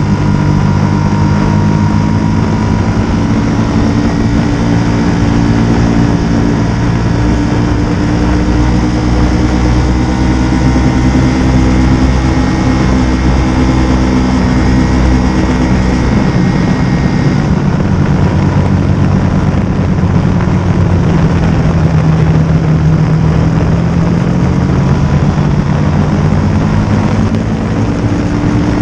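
Motorcycle engine running steadily while riding, with wind and road noise; the engine note drifts slightly lower and then rises again as speed changes.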